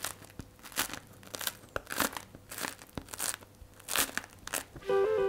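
Fingers pressing on the crisp crust of a freshly baked wheat loaf, the crust crackling in a quick, irregular series of sharp crunches. Music comes in near the end.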